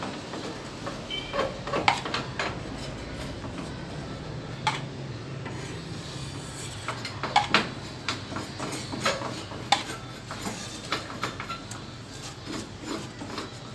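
Small metal putty knife scraping and tapping as plaster filler is spread and smoothed along a gypsum ceiling moulding: irregular short scrapes and sharp clicks, a cluster near the middle and another about two-thirds in.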